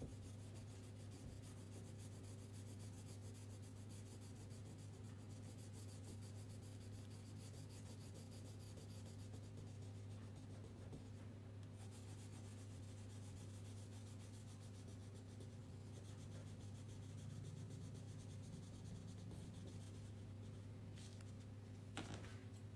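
Faint, steady scratching and rubbing of colouring strokes on a paper page, over a low steady electrical hum, with a single sharp tap near the end.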